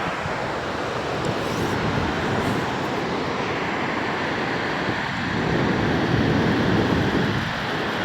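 Waterfall roaring: a steady, loud rush of falling water that swells a little about two thirds of the way through.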